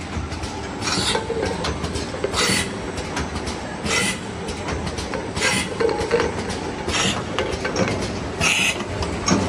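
Automatic paper-canister flanging and sealing machine running, with its conveyor and mechanism making a steady hum. A short hiss-like stroke repeats about every one and a half seconds as the machine cycles.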